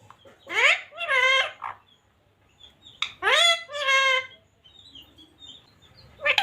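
Parrot calling loudly in two bursts about two and a half seconds apart. Each burst opens with a sharp rising sweep and runs into two drawn-out, voice-like syllables.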